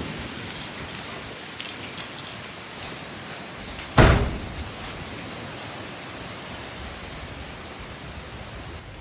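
Steady hiss of heavy storm rain and wind, with a sudden loud thump about four seconds in.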